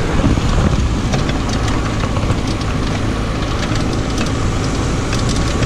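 VW Beetle-based buggy's engine running steadily as the buggy drives along a concrete road, with light rattling ticks in the second half.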